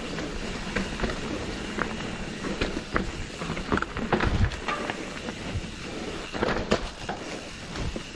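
Mountain bike rolling down a rocky downhill trail: tyres crunching over stones, with chain and frame rattling and a run of sharp knocks as the wheels hit rocks. The hardest knocks come about four seconds in and again about six and a half seconds in.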